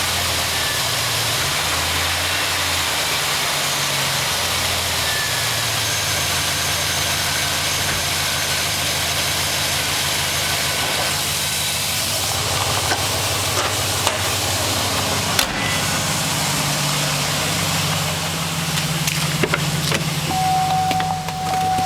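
2006 Chevrolet Trailblazer SS's 6.0-litre LS2 V8 idling after a cold start, with the knock of piston slap. A few sharp clicks sound over the idle in the second half.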